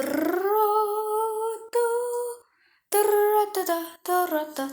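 A female voice humming without words: one long note that rises at first and holds for about two seconds, then, after a short pause, several shorter notes.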